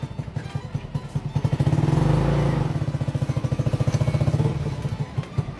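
Small motorcycle engine running, a rapid, even firing beat that swells louder about two seconds in and then eases back down.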